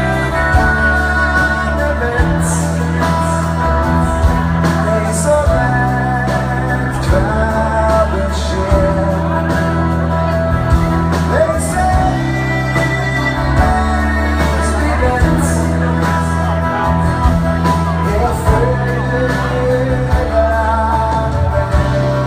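Live band music: a man singing over acoustic guitar, drums and keyboards, with deep sustained bass notes and cymbal strokes. It is heard from the audience in a large hall.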